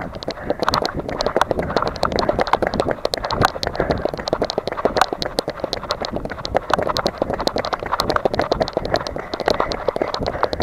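Running footsteps on wet pavement mixed with the knocking and rubbing of a camera jostled with each stride: a dense, uneven clatter of clicks and thuds.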